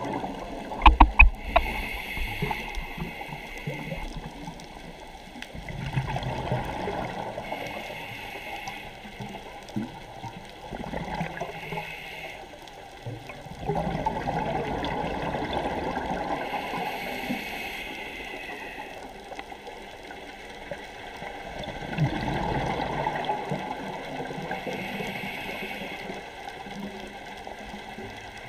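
Scuba diver breathing through a regulator underwater, several slow breaths: a hiss on each inhale, then a rush of exhaled bubbles. A few sharp clicks about a second in.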